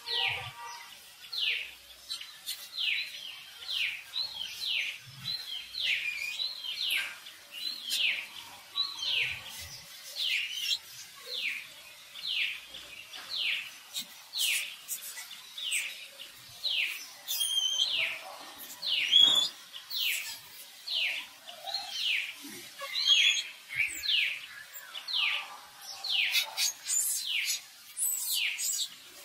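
A bird calling over and over with a short falling note, roughly three calls every two seconds, with higher chirps from other birds at times.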